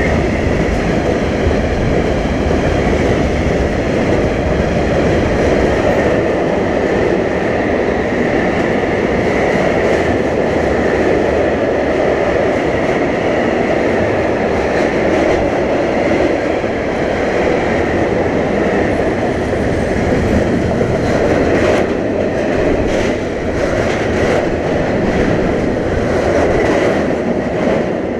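Freight train of tank wagons passing close by at speed: a loud, steady rumble of wheels on rail. Sharp clacks come through in the later part.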